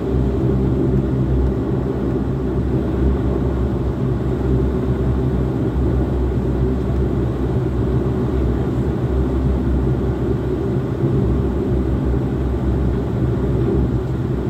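Turboprop airliner's engine and propeller running steadily, heard from inside the cabin: an even drone made of several low, steady hum tones, with the aircraft standing on the runway before its take-off roll.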